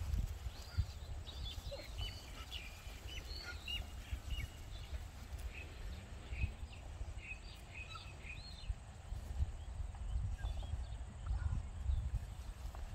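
Small birds chirping and twittering, densest through the first two-thirds, over a low wind rumble on the microphone.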